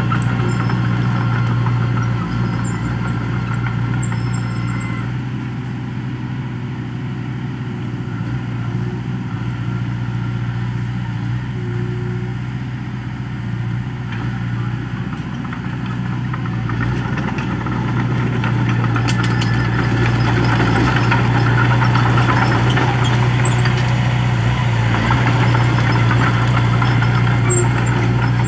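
Small Komatsu crawler bulldozer's diesel engine running steadily as the machine works soil. It grows quieter in the middle as the dozer moves away, and louder again in the second half as it comes back.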